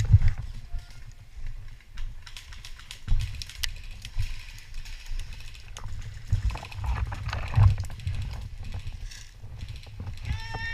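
Scattered sharp clicks and knocks over an uneven low rumble and thumps, the handling and movement noise of a player's gear during an airsoft game.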